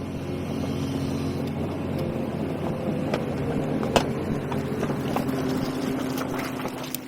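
Hyundai R220LC crawler excavator's diesel engine running steadily under work, with several sharp knocks, the loudest about four seconds in.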